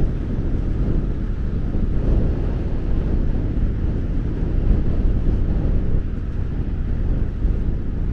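Wind buffeting the microphone, a steady low rumble that swells and eases with the gusts.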